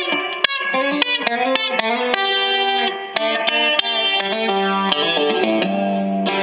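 Electric guitar playing a country lick in the key of D that walks up to a G: a quick run of picked single notes, some left to ring.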